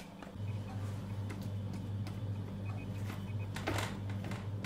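Hands pressing and stretching soft, oiled bread dough across a metal baking tray: soft squishing with a few light taps, the longest squish near the end. A steady low hum starts about half a second in and runs underneath.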